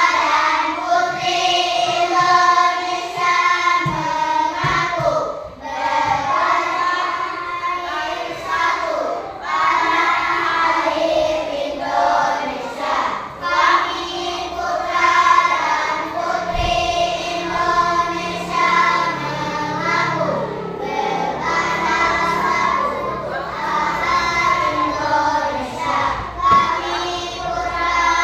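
A group of children singing a song together in unison, phrase after phrase with short breaks between lines.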